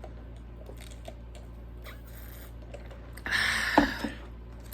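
Eating sounds close to the microphone: faint chewing and mouth clicks, then about three seconds in a brief loud burst of handling noise with one sharp knock.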